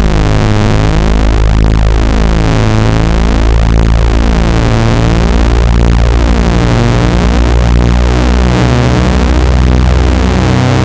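Loud electronic speaker-cleaning tone played to shake water and dust out of a phone speaker: a low buzz heavy with overtones, its pitch shifting in steps every second or so.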